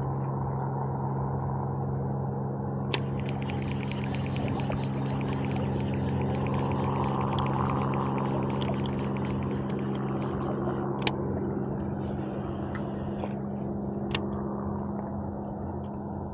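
Fishing reel being cranked to wind in line, a fast run of fine ticks for several seconds with a few single sharp clicks, over steady river water and a low hum.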